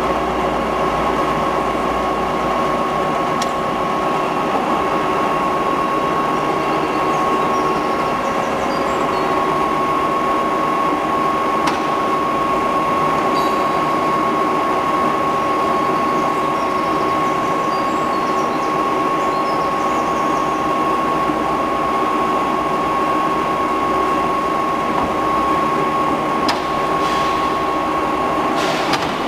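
AYCE AC80 horizontal boring mill running: a steady mechanical hum with a constant high-pitched whine.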